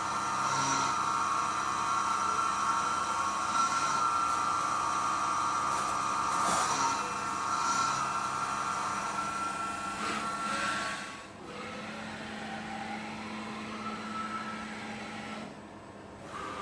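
SYIL X7 CNC milling machine milling cast iron dry: a steady high-pitched whine with cutting noise. About eleven seconds in it drops to a quieter running with pitches gliding up and down.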